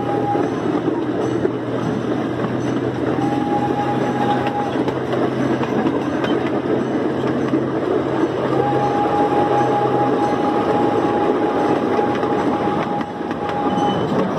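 Small park train running along its track, heard from an open passenger car: a steady rumble of the wheels on the rails. A thin, steady high tone comes and goes three times, the last and longest lasting about five seconds near the end.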